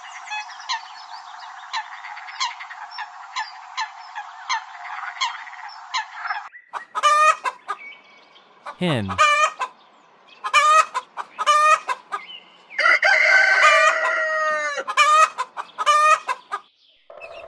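A waterbird's short calls, about two a second, over a steady hiss. A few seconds later a hen takes over, clucking in short separate calls, with one longer drawn-out call near the end.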